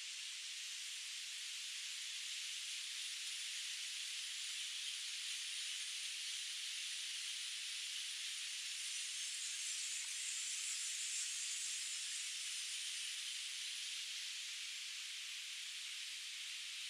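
Rushing water of a river's cascades, a steady hiss that swells slightly in the middle and eases off near the end.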